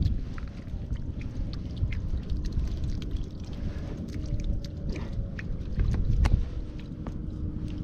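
Water splashing and sloshing over a steady low rumble, with scattered small knocks.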